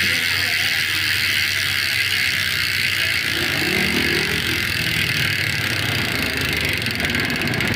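Nautilus Clickr 148 mountain-bike rear hub freewheeling as the wheel spins against the hand-held freehub body. The pawls snap over the ratchet so fast that the clicks merge into a steady, high, buzzing 'wasp' sound, the sound the pawl upgrade is meant to give.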